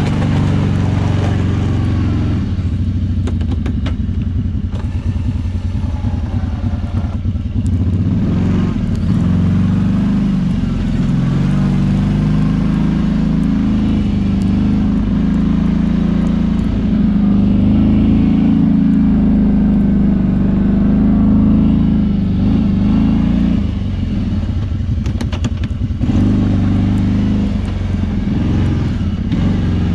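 Kawasaki Brute Force 650i ATV's V-twin engine running under load while plowing snow. Its pitch rises and falls with the throttle, highest in the middle stretch, and dips for a couple of seconds twice, early and near the end.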